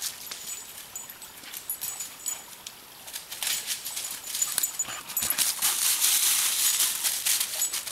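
Boxer dogs running through dry leaf litter: paws rustling and crunching the leaves, louder from about five seconds in as one dog runs close by.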